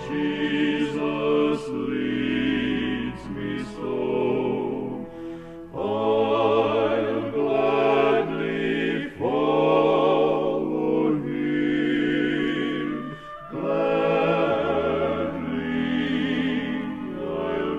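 Male gospel vocal quartet singing in close harmony, with long held notes and vibrato, from a 1970s album recording.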